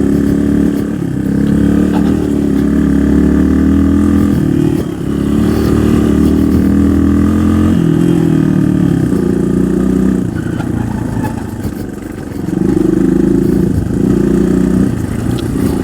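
Single-cylinder dual-sport motorcycle engine running under load on a trail ride, the rider rolling the throttle on and off; it eases off briefly about five seconds in and again about twelve seconds in before pulling again.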